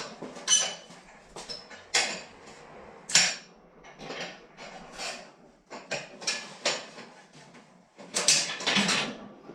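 Irregular metallic clanks and knocks, about a dozen, some with a brief ring after them, with a quick cluster near the end: tools and rusty steel parts of an old surgical table being knocked and handled as it is dismantled.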